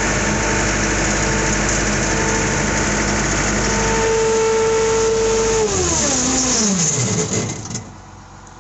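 Farm loader engine running steadily at speed with a steady whine over it. About five and a half seconds in, the pitch falls over a couple of seconds as the engine is throttled back, and the noise drops away near the end.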